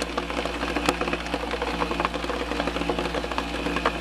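Home-built shaker deck running with a steady mechanical hum and rattle, water spraying from a PVC spray bar onto its punched-plate screen, and rocks clicking and shifting as they wash across it.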